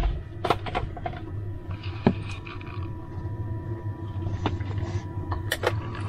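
A steady low hum under a few sharp clicks and knocks as a stainless-steel thermos is picked up and handled, with two quick clicks near the end as it is readied to pour.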